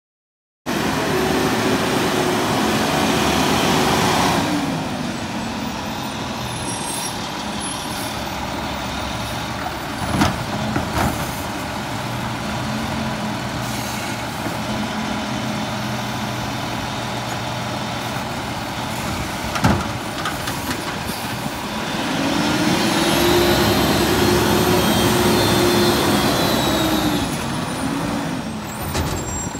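Peterbilt garbage truck's diesel engine revving as its McNeilus Autoreach automated side-loader arm lifts a cart and dumps it into the hopper, with two sharp bangs from the cart and arm, about ten and twenty seconds in. Near the end the engine revs up and falls back as the truck pulls away.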